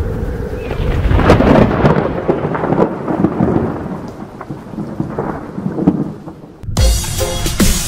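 Thunder rolls with crackling, loudest about a second and a half in, then fades to a low rumble. Near the end it is cut off by electronic dance music that starts abruptly.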